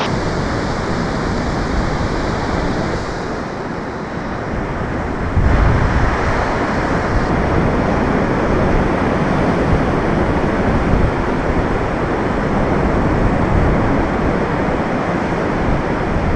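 Ocean surf breaking on a sandy beach, a steady wash of waves. From about five seconds in, wind rumbles on the microphone.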